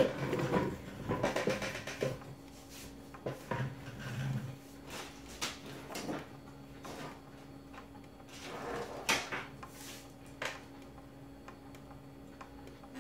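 Rummaging through a drawer: irregular knocks, clicks and rustling of objects being moved, in a few separate bouts, over a steady low hum.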